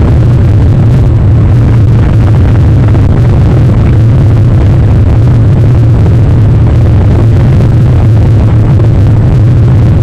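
Storm wind buffeting an outdoor webcam's microphone: a loud, steady low rumble with no letup.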